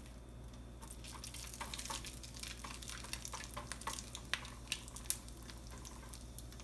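Cumin seeds crackling and popping in hot oil alongside frying cashews in a stainless steel pan. The scattered pops begin about a second in, just after the seeds go in, with a few louder ones a little past the middle.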